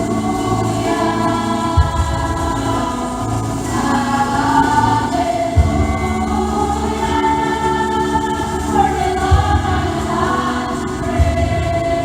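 Church choir singing a Christmas cantata song, holding long sung chords over low accompanying notes that change every few seconds.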